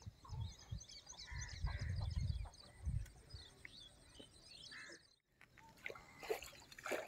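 Birds calling and chirping, with a few louder honking calls among many short high chirps, over low rumbles of wind on the microphone that are loudest between one and three seconds in.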